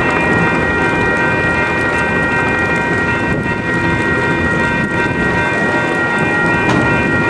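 Train cars rolling past a grade crossing with a steady low rumble, over which the crossing's warning bells keep up a continuous ringing.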